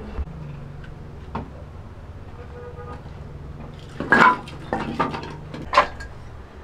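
Metal cookware and a sheet-metal stove being handled: a couple of light knocks, then a cluster of louder clattering clangs about four to six seconds in.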